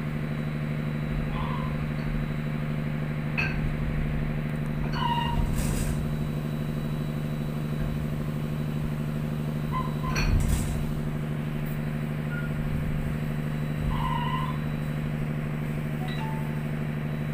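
Steady low hum of a ship's machinery running, with a few brief faint noises on top, the clearest about ten seconds in.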